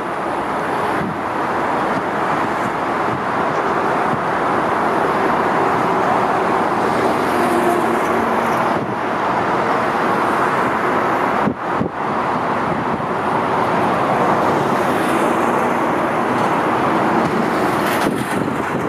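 Airbus A380 jet engines making a loud, steady rushing noise as the airliner lands and rolls out along the runway, with brief dips where the footage is cut.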